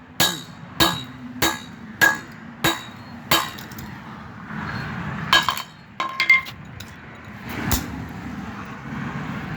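A toy car being struck hard and repeatedly, with sharp clinking blows: six evenly spaced hits in the first three and a half seconds, then a few scattered hits after a short pause.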